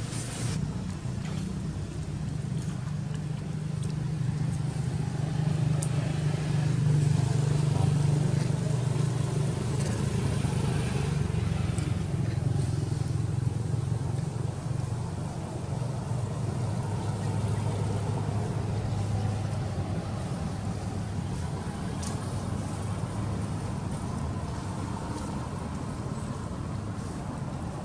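A low, steady motor rumble that swells a few seconds in and then eases back.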